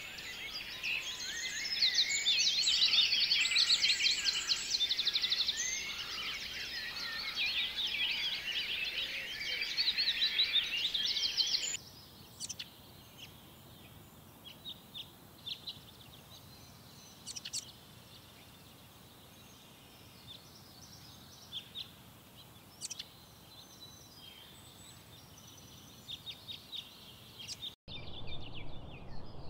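Birdsong: a dense chorus of many birds chirping and trilling for the first twelve seconds. It cuts off abruptly to scattered single chirps over a quiet background. Near the end, after another brief cut, comes a new stretch of repeated calls.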